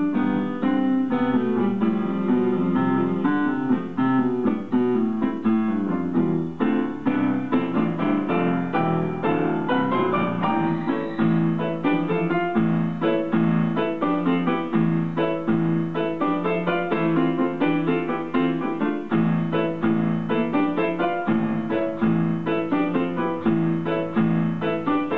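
Solo digital piano playing a fast piece: quick runs of notes over regularly repeated low chords in the left hand.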